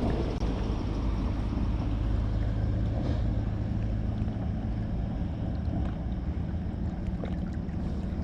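Steady low motor drone, with wind noise on the microphone.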